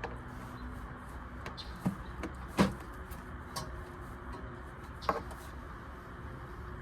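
Scattered clicks and knocks of hand tools and car parts being handled, the loudest about two and a half seconds in and another about five seconds in, over a steady low hum.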